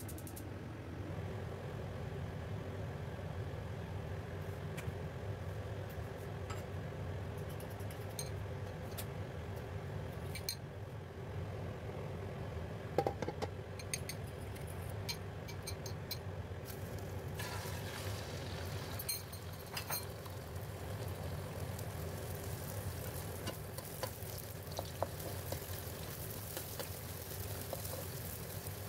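Kitchen cooking sounds at a wok over a steady low hum: scattered clinks of utensils and dishes against the pan. From a little past halfway, hot oil and then beaten eggs sizzle as a spatula pushes them around the nonstick wok.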